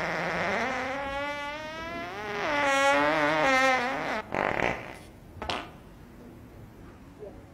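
A long, drawn-out fart with a buzzing, wavering pitch that lasts about three and a half seconds, followed by a couple of short sounds.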